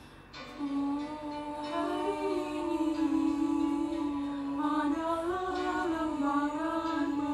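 A girl humming a melody in one long unbroken line that steps gently up and down in pitch, without words.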